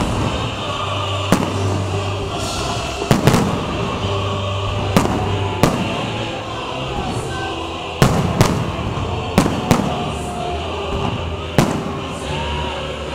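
Aerial firework shells bursting overhead: about ten sharp bangs at irregular intervals, some in quick pairs.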